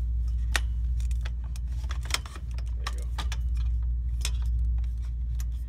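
Light metallic clicks and clinks from hands handling the aluminium tubes and screw-in fittings of a Fast-Fold projection screen frame, sharp ticks scattered irregularly, over a steady low hum.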